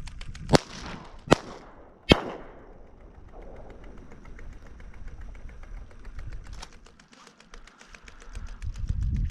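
Three 28 gauge shotgun shots in quick succession, about three quarters of a second apart, each with a short echo after it.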